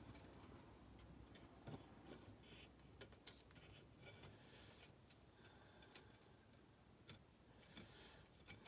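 Near silence, broken by faint, scattered scratches and clicks of a small blade scoring decoupage paper around the rim of a painted plate.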